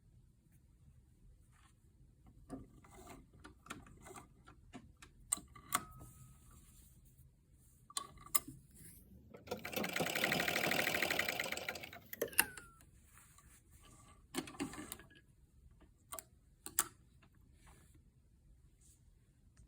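Electric sewing machine stitching a short seam through layers of mask fabric: a steady run of about three seconds midway, with a fast, even stitching rhythm. Short clicks and fabric handling come before and after it.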